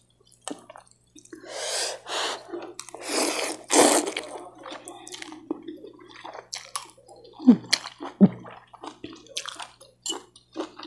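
A person eating soupy fried noodles with a spoon and fork: slurping in the first few seconds, then chewing, with small clinks of cutlery on the bowl.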